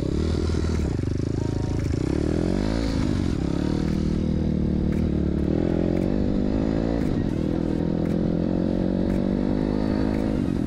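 A pit bike's 160 cc KLX-type four-stroke single, converted to a four-valve head with a stage 1 tune, is pulling under load on a test ride. Its pitch climbs and then drops at each gear change, several times over.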